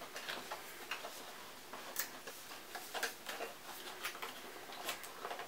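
Fingers picking and scratching at the seal on top of a cardboard box: scattered light clicks and scrapes at irregular intervals.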